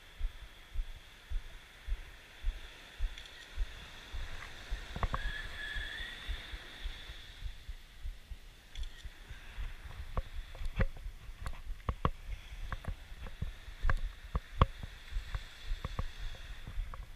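Footsteps on beach sand, heard through a body-worn camera as dull, evenly paced thumps, about one and a half a second. From about ten seconds in there are scattered sharp clicks, and a short rising tone about five seconds in.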